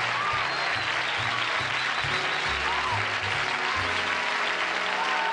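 Studio audience applauding over a band playing walk-on music, with a bass line stepping from note to note and a few whistles above the clapping.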